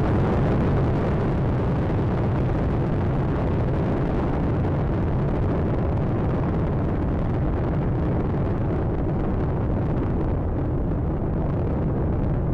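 Space Shuttle Atlantis's solid rocket boosters and three main engines during ascent: a steady, loud, deep rumble. Its higher hiss thins gradually in the second half as the vehicle climbs away.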